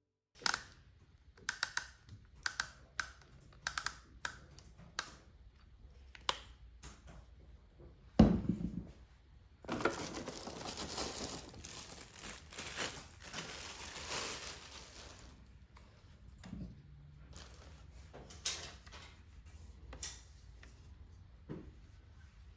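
Handling noises: a run of sharp clicks and taps, a thump about eight seconds in, then several seconds of crinkling rustle and a few softer knocks.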